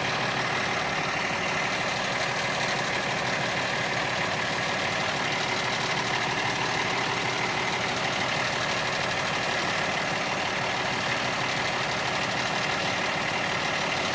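Fire truck engine idling steadily, with a constant hum and a steady higher whine.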